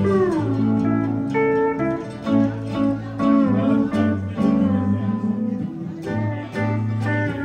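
A live band playing: acoustic guitar, banjo, bass, drums and pedal steel guitar. Just after the start a steel-guitar line slides down in pitch over the held chords.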